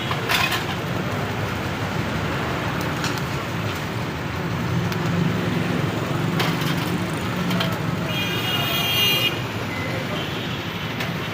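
Steady street traffic noise with people's voices in the background. Near the end a high-pitched vehicle horn toots for about a second.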